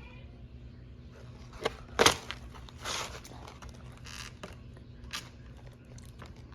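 Scattered crunches and crackles of someone eating fried chicken, the loudest about two seconds in, over a steady low hum.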